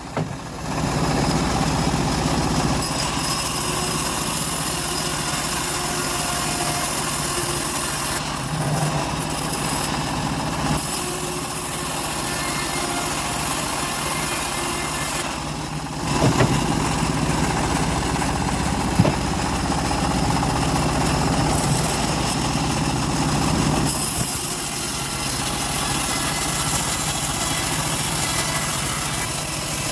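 Engine of a homemade bandsaw mill running steadily, with a few shifts in load and tone as it saws a large teak log.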